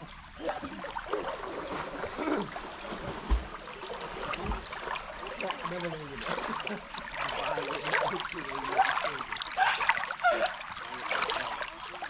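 Shallow stream running fast over a gravel bed, heard close up: a steady babble with a constant run of small gurgles and bubbling plips.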